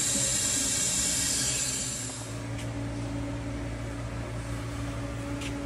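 A welding arc hissing steadily as a steel wheel center is welded into its rim, stopping about two seconds in. After that a steady low hum remains, with a couple of faint ticks.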